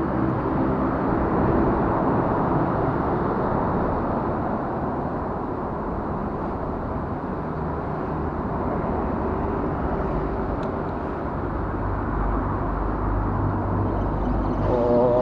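Steady rumble of road traffic, lorries crossing the bridge overhead, with the low rumble swelling near the end.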